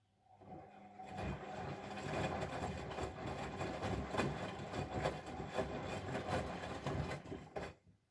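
Bosch Maxx WFL 248Y washing machine running: a brief motor tone as it starts, then an uneven mechanical rumble with many small knocks for about seven seconds, stopping suddenly near the end.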